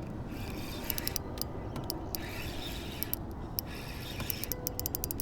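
2500-size Shimano Vanford spinning reel being worked against a small fish, clicking in quick clusters, with the densest run of clicks near the end.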